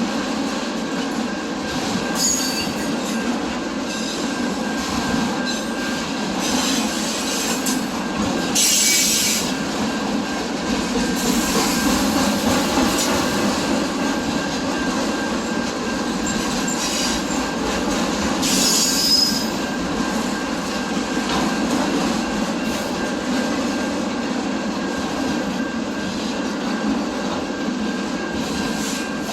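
A train rolling past, the steady noise of wheels on the rails throughout. Short high-pitched wheel squeals come a few times: about two seconds in, around nine seconds, and near nineteen seconds.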